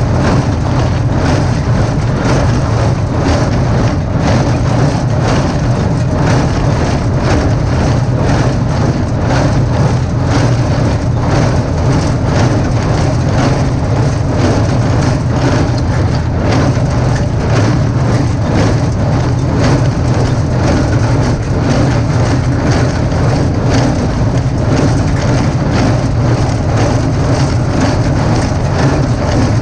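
Diesel engine of an Allis Chalmers 5050 tractor running steadily, with the New Holland 310 baler working behind it and a regular knock repeating through the engine sound.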